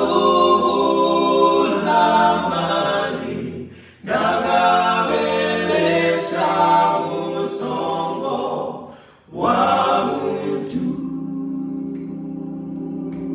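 A male a cappella group singing in close multi-part harmony, in three phrases with brief breaks between them; the last phrase settles into a long held chord.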